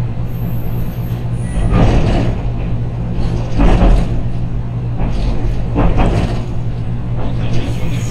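JR Kyushu 813 series electric train standing at the platform: a steady low hum with three swells of noise about two seconds apart.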